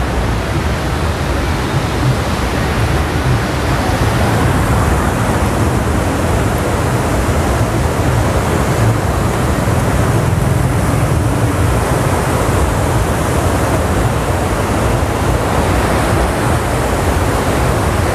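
The Ganges, swollen by monsoon rain, rushing through the gates of Bhimgoda Barrage: a steady, loud rush of turbulent white water with a low rumble underneath.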